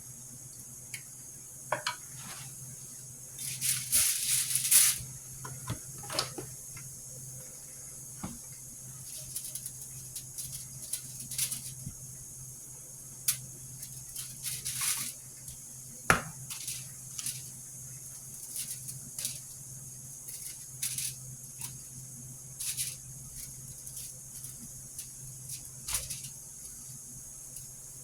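Kitchen handling noises during food preparation: scattered short scrapes and clicks, with a longer rustling scrape about four seconds in, over a steady low hum and hiss.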